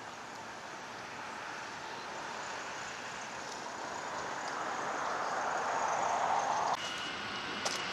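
Steady noise of a distant approaching freight train mixed with road traffic, swelling over several seconds, then dropping suddenly about seven seconds in, after which a faint thin tone holds.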